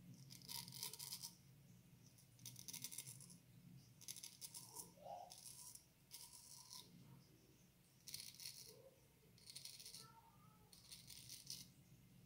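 A circa-1900 Antoine Touzet frameback straight razor with a Swedish steel blade, scraping through lathered stubble. It comes as a faint series of short, crisp strokes, about one a second.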